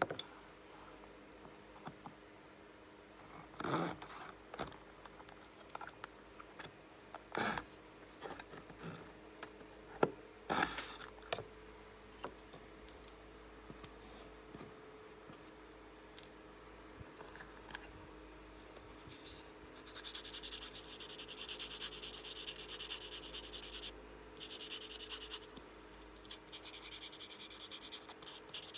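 A few light knocks from handling a plastic mitre box and thin wooden strips on a cutting mat, then, from about two-thirds of the way through, a thin wooden model spoke being rubbed on a folded piece of sandpaper in steady scratchy strokes, with two short pauses.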